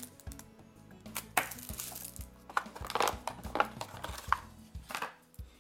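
Plastic wrapping and a cardboard box insert being handled: about half a dozen short rustling, crinkling bursts and light knocks.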